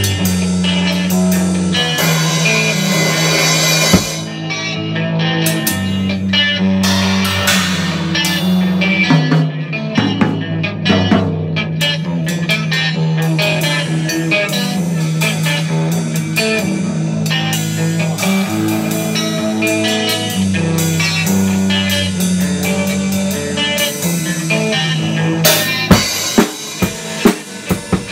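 Band music: guitar and a steady bass line over a drum kit. About 26 seconds in, the bass and guitar drop out and the drums carry on alone in a run of sharp hits.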